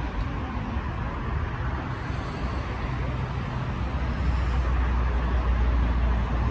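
Steady low rumble of outdoor traffic noise, growing louder about four seconds in.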